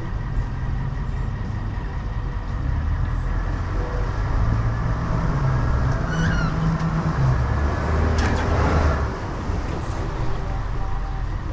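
Pickup truck engine running as it tows a loaded boat trailer up a launch ramp. The low rumble grows stronger as the truck pulls, and there is a short rush of noise about eight seconds in.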